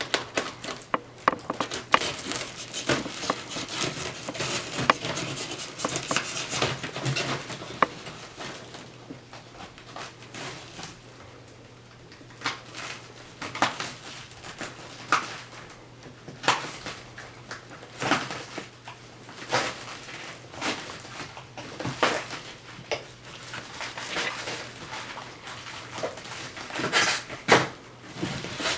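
Packaging and parts of a boxed flight-simulator throttle being handled during unpacking: scattered clicks and knocks with rustling, over a low steady hum.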